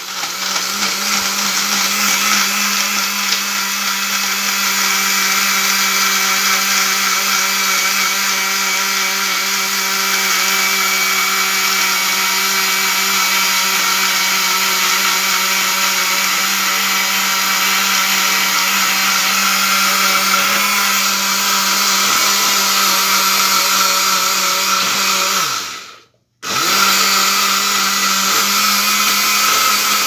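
Vintage Walita Campeão 70 blender with a 350 W motor running steadily at full speed, chopping acerola cherries in water. Near the end the motor winds down and stops for a moment, then starts again.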